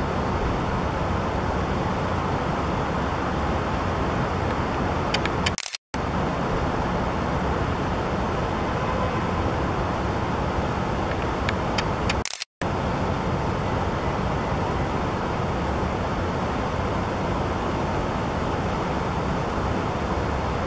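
Steady outdoor background hiss and rumble with no distinct event in it, cutting out for a split second twice, about six and twelve and a half seconds in, each time just after a few faint clicks.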